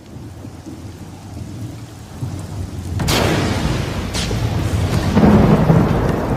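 Thunderstorm: low rumbling, then a sharp thunderclap about three seconds in and a second crack about a second later, followed by a heavy rolling rumble near the end, over a steady hiss of rain.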